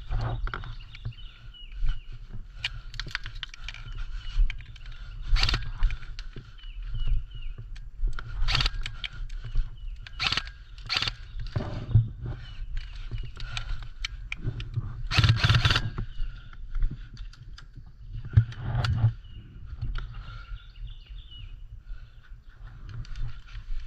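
Footsteps and rustling of someone moving through undergrowth, with irregular crackles and low thumps, loudest in a long burst about 15 seconds in. A faint chirping goes on underneath.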